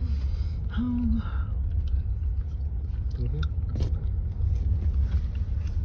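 Steady low rumble of a road vehicle, with a short murmur of voice about a second in.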